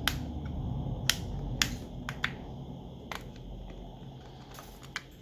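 Sharp, irregular clicks of small repair tools against an opened smartphone's plastic frame and metal parts, about seven in all, over a low steady hum.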